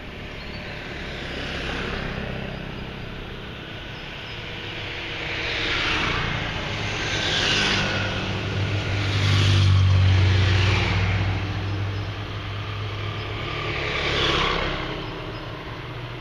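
Large motor scooters and a motorcycle riding past one after another, each engine rising and fading as it goes by, about five passes in all. The loudest pass, about ten seconds in, has a strong low engine note.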